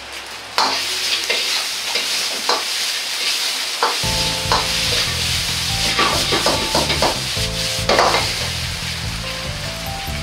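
Rice frying with a steady sizzle in a hot wok, stirred and tossed with a metal ladle that clicks and scrapes against the pan. Background music comes in about four seconds in.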